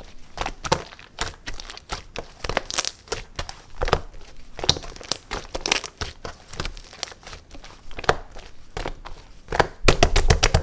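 Clear slime with clay mixed in, squeezed and pressed by hand, giving irregular crackling and popping clicks. The clicks come thicker and louder near the end.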